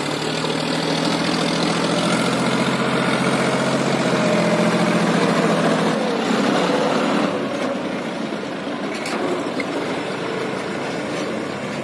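John Deere 5045D tractor's three-cylinder diesel engine running steadily as it pulls a fully loaded trolley, growing louder as it passes close by and then dropping off about seven seconds in as it drives away.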